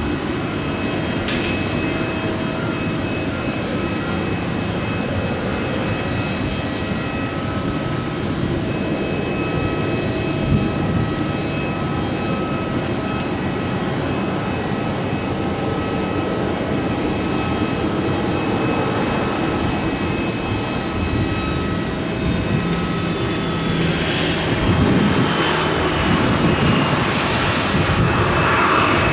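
Boeing 737-800's CFM56-7B jet engines running, a steady rumble with high steady whines. Over the last several seconds the sound grows louder and one whine falls in pitch.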